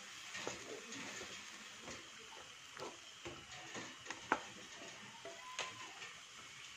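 Wooden spatula stirring chicken curry in a nonstick wok, with irregular scrapes and light knocks against the pan and a sharper knock about four seconds in, over a steady sizzle of the simmering curry.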